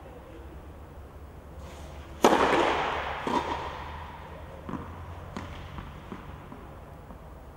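Tennis racket striking the ball on a serve: one sharp crack about two seconds in that rings on in the echo of a large covered hall, followed by a few fainter knocks of the ball.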